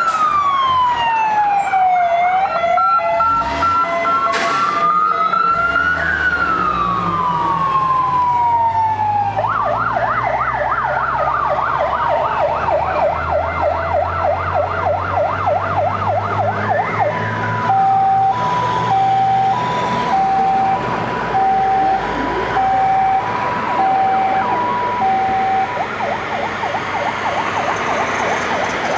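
Electronic sirens of fire engines passing on an emergency run. The siren goes from a slow rising-and-falling wail, to a fast yelp about nine seconds in, to a high-low two-tone from about seventeen seconds, fading near the end. The low sound of a truck engine passes in the middle.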